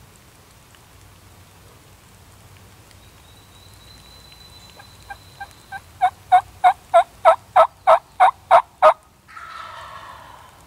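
A series of about a dozen turkey hen yelps, evenly spaced at about three a second, starting with a few soft notes and then turning loud. A quieter, rough rasping sound follows shortly after.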